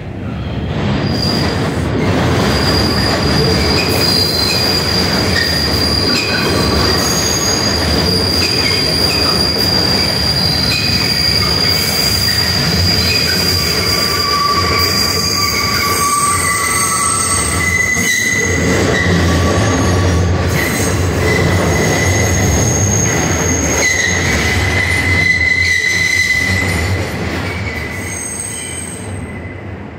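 New York City subway train of the IRT White Plains Road Line running along the elevated steel structure: a loud steady rumble with high, drawn-out steel wheel squeals that change pitch midway, fading away over the last few seconds.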